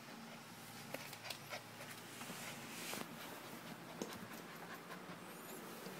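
Puppy breathing and sniffing right at the phone, with a few faint clicks and knocks.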